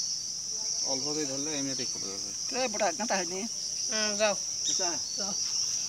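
Steady high-pitched drone of a chorus of insects, unbroken throughout, with people's voices talking on and off over it.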